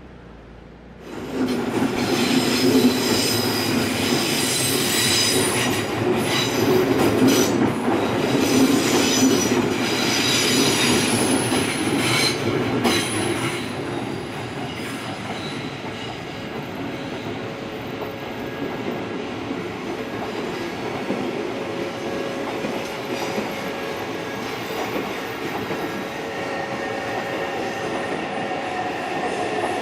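Odakyu Line electric train running past close by, its wheels squealing on the rails. It comes in suddenly and loud about a second in, with high squealing for the first dozen seconds, then settles to a lower, steadier run.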